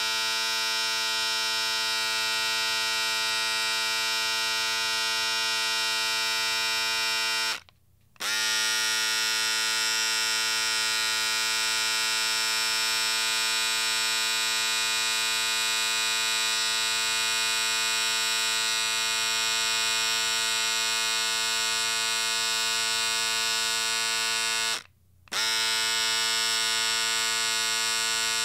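Electric shaver buzzing steadily, switched off and on again twice; at each restart the pitch sweeps briefly upward as the motor comes up to speed.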